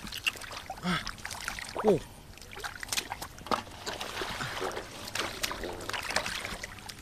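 Hands splashing and sloshing in shallow muddy water, a run of small irregular splashes and squelches, as catfish are groped for by hand in the mud. A couple of brief vocal sounds about one and two seconds in.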